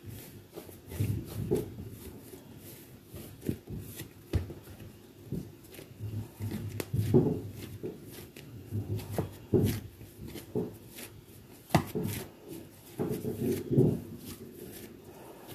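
Hands kneading and shaping a ball of pizza dough: irregular soft pats, presses and thuds with scattered light clicks.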